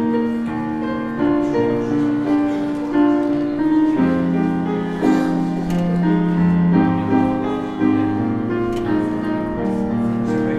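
Keyboard music: slow, sustained chords that change about once a second.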